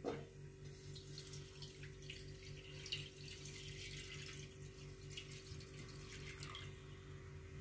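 Full fat milk being poured into a non-stick pan: a faint, irregular splashing and trickling over a steady low hum.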